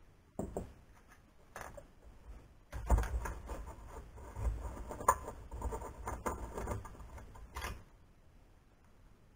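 Hand-work on an aluminium extrusion frame: rustling, scraping and sharp little clicks and knocks of small metal hardware against the rails. A couple of isolated clicks come first, then the handling gets busy from about three seconds in, with one sharp knock in the middle, and dies down before the end.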